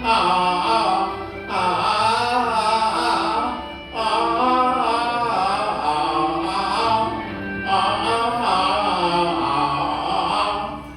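Cantonese opera singing with instrumental accompaniment: one voice holds long, wavering melismatic notes in phrases that pause briefly about three times.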